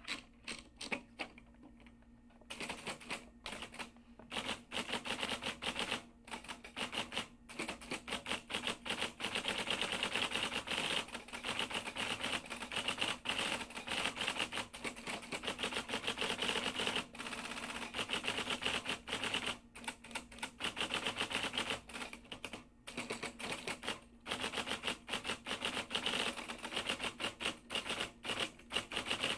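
Typewriter keys clacking in quick, unbroken runs, with short pauses every few seconds. The clacks are softer over the first two seconds.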